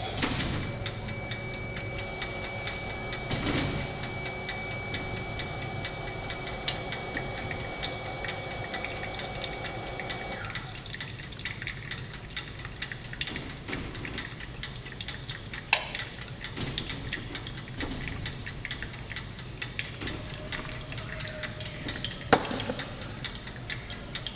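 Hot water poured in a thin stream from a gooseneck kettle onto coffee grounds in a paper-filtered pour-over dripper. A steady tone sounds over the first ten seconds or so and then stops, and a single sharp knock comes near the end.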